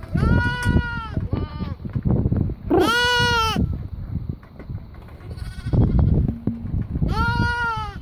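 Young lambs bleating: about four calls, one short and one longer, louder bleat about three seconds in, another near the end, over a low rustling.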